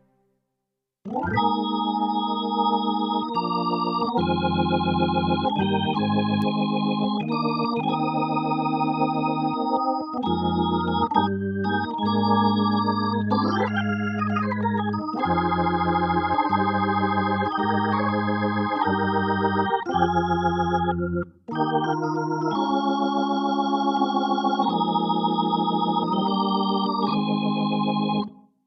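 Nord Electro 6D stage keyboard playing an electronic organ patch in the style of a Hammond tonewheel organ: held chords changing every second or two, with a wavering shimmer. There is a brief sliding pitch near the middle and a short gap about two-thirds of the way through.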